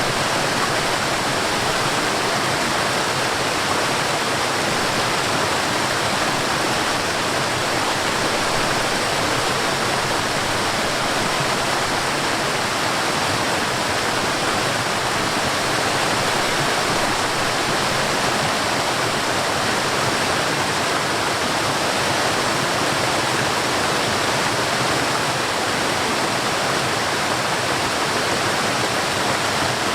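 Forest waterfall: falling water rushing in a steady, even roar of white-noise-like hiss with no changes.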